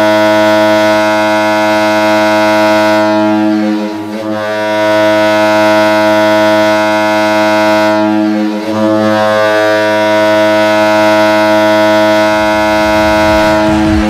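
Hockey arena goal horn sounding a deep, steady multi-note chord in three long blasts, with short dips between them about four seconds and eight and a half seconds in. Near the end the goal song's music comes in underneath.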